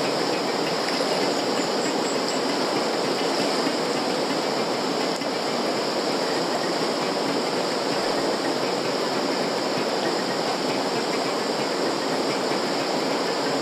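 Steady rushing noise at an even level, with no breaks or distinct events.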